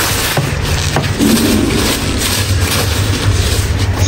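Kitchen paper towel crinkling and rustling in a run of short crackles as raw chicken pieces are pressed and patted dry with it on a wooden chopping board.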